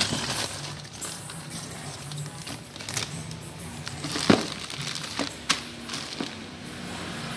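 Clear plastic bag of wiring and cables crinkling and rustling as it is lifted out of a cardboard box and handled. Several sharp knocks and taps come with it, the loudest about four seconds in.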